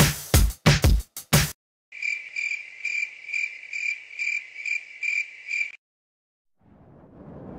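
Electronic music with a beat cuts off a second and a half in. A cricket then chirps in an even rhythm, about two and a half chirps a second, for roughly four seconds, and stops abruptly. Near the end a low rumbling noise swells up.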